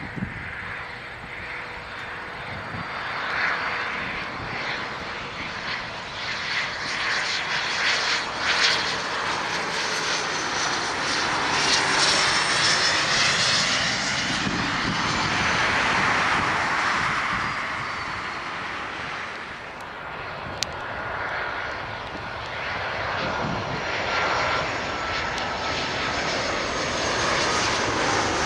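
Jet aircraft engines passing close by on approach, a steady roar that swells to its loudest about halfway through and then eases, with a faint falling whine.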